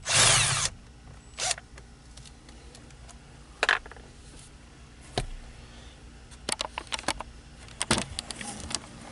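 Hand tools clicking and clinking as the two bolts holding a steering-wheel airbag are loosened, after a short burst of noise at the start. The clicks come singly and in small clusters, with a quick run of them toward the end.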